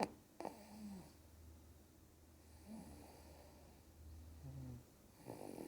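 Snoring: one long, low rumbling breath lasting about four seconds, with a few short snorting sounds over it and a sharp click right at the start.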